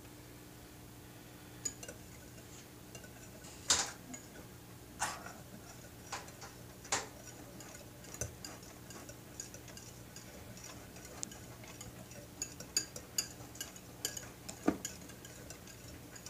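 Wire whisk beating eggs in a bowl: irregular clicks and taps of the wires against the bowl, with a few louder knocks, growing busier near the end.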